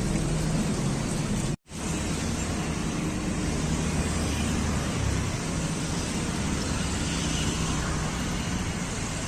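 Road traffic: a steady wash of engine and tyre noise with a low engine hum, cutting out for a split second about a second and a half in.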